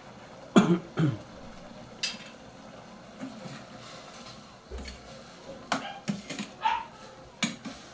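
A metal ladle clinking and scraping against a stainless steel pot as the pork adobo in it is stirred, with a run of short clinks in the second half. Two short loud sounds come about half a second and a second in.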